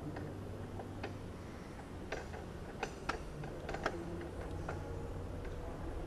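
Irregular light clicks and taps, about a dozen, over a steady low hum.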